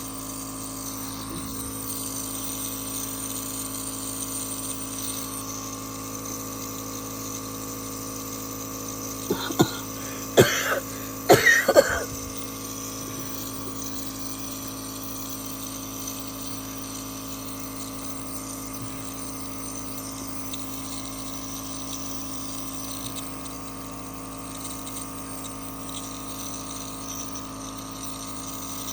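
A person coughing: a short fit of about five coughs, about nine to twelve seconds in, over a steady background hum.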